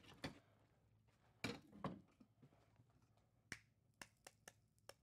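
Quiet, with a few soft knocks early on, then about five sharp taps in quick succession in the last second and a half: an egg being knocked against the rim of the pan, not breaking.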